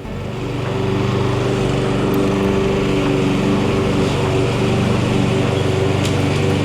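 Masport Black Viper walk-behind mower's 139cc petrol engine running steadily while mowing, growing louder over the first second and then holding an even note.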